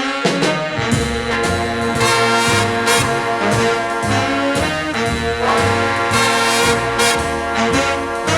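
Background music led by brass horns over a steady walking beat.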